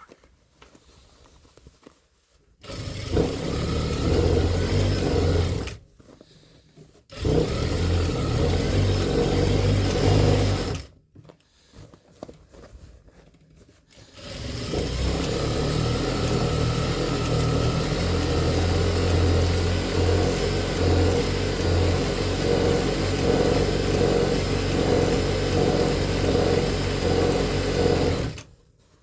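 Sewing machine stitching denim, darning over a worn patch of jeans, run in three spells: a few seconds, then another few seconds after a short stop, then a long steady run of about fourteen seconds before it stops.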